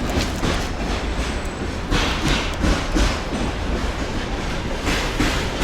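Passenger train rolling past at close range: a steady rumble with the wheels clacking over the rail joints.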